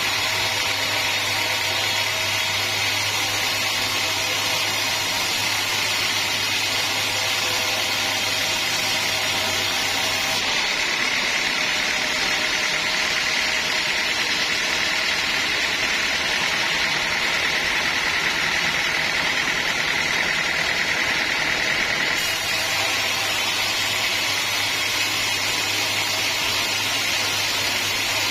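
Sawmill saw cutting through a teak log, a steady machine noise with a high whine. The sound changes abruptly about ten seconds in and changes back about twenty-two seconds in.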